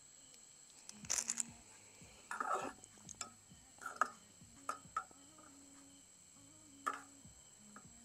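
Cooking utensils knocking and clinking against a pan and dishes in a few scattered, irregular strikes, with a louder cluster about a second in and another near 7 s, over soft background music.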